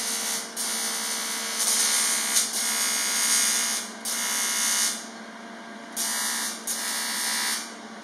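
Electric welding arc buzzing steadily on a cast aluminium-magnesium motorcycle frame, laid down with 5% magnesium aluminium filler rod. It runs in stretches of one to three seconds, stopping briefly between runs as the arc is broken and struck again.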